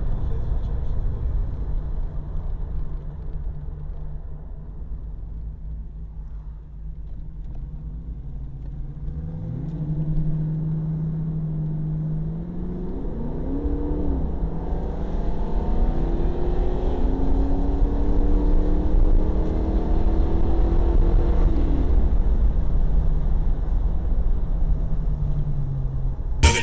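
A car engine driving off: it settles low, revs up about nine seconds in, rises and drops back through a gear change shortly after, climbs steadily as the car gathers speed, then eases off near the end.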